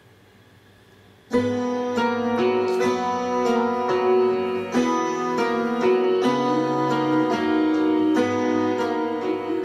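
Music with piano-like keyboard notes playing from an Edifier Extreme Connect (MP260) portable Bluetooth speaker at reduced volume, starting abruptly about a second in.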